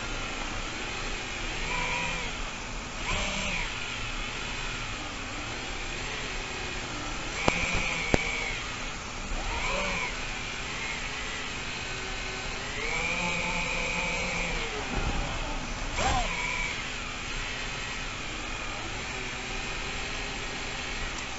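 FPV quadcopter's electric motors and propellers running, a steady whirring noise whose whine rises and falls in pitch as the throttle changes, with two sharp clicks about seven and a half seconds in.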